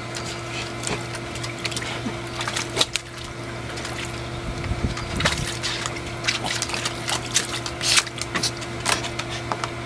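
Small dog splashing water in a plastic kiddie pool, irregular sloshing and splashes as it paws and noses at the water, over a steady low hum.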